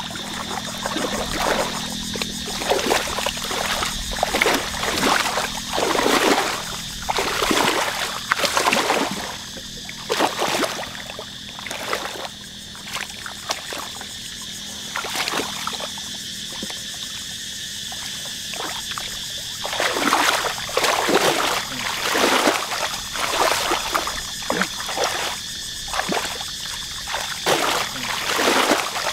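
Hands and booted feet splashing and sloshing in shallow muddy paddy water, in irregular bursts, with a quieter stretch in the middle. A steady high tone runs underneath.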